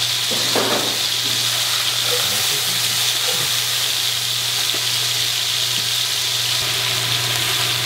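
Chicken pieces, bacon and turnips sizzling steadily in hot fat in several stainless pans on a gas range while they brown, over a low steady hum.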